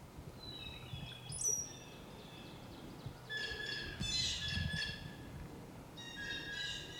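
Wild birds calling: clusters of short, high, clear calls near the start, in the middle and near the end.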